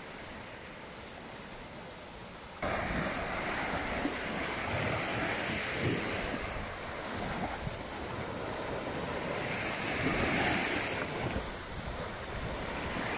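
Small waves washing onto a sandy beach, with wind buffeting the microphone. The sound jumps louder suddenly about two and a half seconds in, and the wash swells up twice after that.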